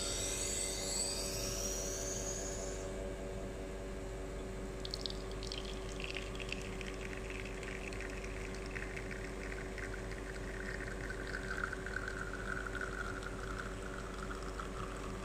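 Victoria Arduino Black Eagle Maverick espresso machine pulling a shot: a steady pump hum, with the espresso stream trickling into the cup from about five seconds in, its pitch falling gradually.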